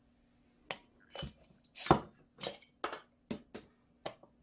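About nine short knocks and clinks of a glass, a bottle and a drink can being handled and set down on a table, the loudest about two seconds in.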